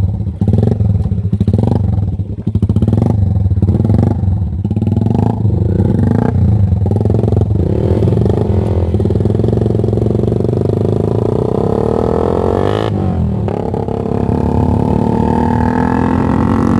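A single-cylinder 150cc underbone motorcycle's engine through an aftermarket open exhaust pipe, blipped in quick repeated bursts for several seconds, then revved up with the pitch rising and held high, dipping once briefly. The running is uneven, which the owner puts down to the bike being freshly washed.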